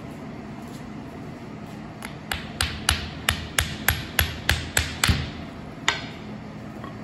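A hammer tapping on the PTO engagement gear and shaft from an Allis-Chalmers WD45 PTO gearbox. About ten sharp taps come at roughly three a second, starting about two seconds in, then one last tap. They are knocking the gear along its shaft to free it, as it seems to be in a bind.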